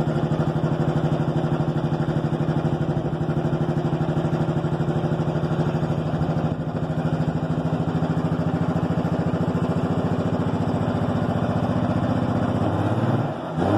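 Cummins inline-six turbo diesel running steadily in a pickup, its pitch dropping lower near the end. The engine has a turbo fault that leaves it smoking heavily.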